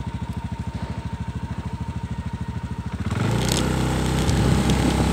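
Small motorcycle engine idling with an even putter, then revved and pulling away about three seconds in, running louder.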